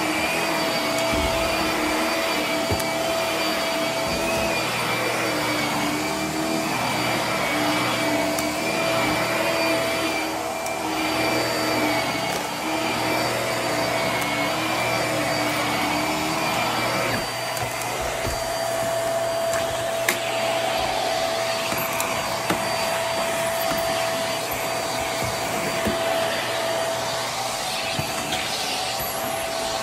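Hart stick vacuum running continuously on carpet: a steady motor whine with a high tone over the rush of air. About 17 seconds in, some lower tones drop away and the sound thins slightly.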